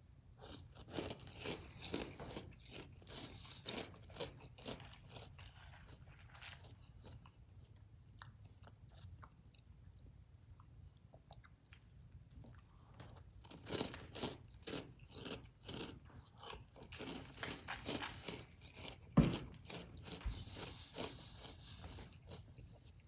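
Close-up chewing of crunchy Sour Patch Kids cereal: a run of crunches, a pause, then a second run, with one sharper knock late on.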